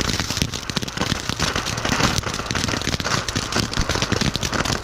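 Ground firework fountain (a "golden flower" shower) spraying sparks, a dense, steady crackling and hissing.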